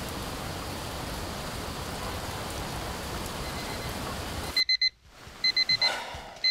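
Steady rain hiss that cuts off suddenly about four and a half seconds in, followed by a digital alarm clock beeping in quick high-pitched groups of four, about one group a second.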